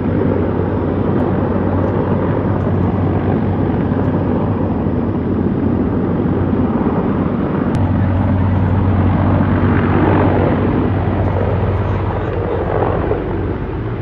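Firefighting helicopter flying past, a loud, steady drone of rotor and engine that swells a little around ten seconds in.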